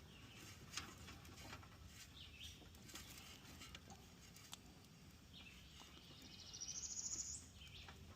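Quiet background with faint bird chirps and, about two thirds through, a short rapid trill that rises in pitch, the loudest sound here. A few light clicks are scattered through it.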